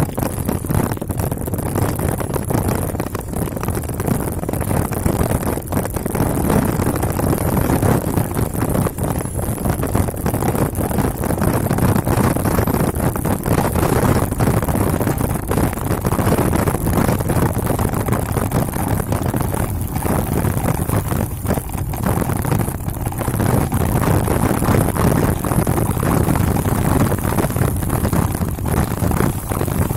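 Steady rumble and rattle of a mountain bike riding over a rough dirt trail, picked up through a handlebar-mounted camera, full of small knocks from the bumps.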